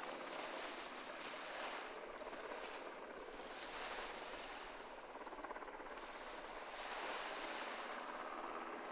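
Small waves washing onto a sandy beach, a soft hiss of surf that swells and eases every few seconds.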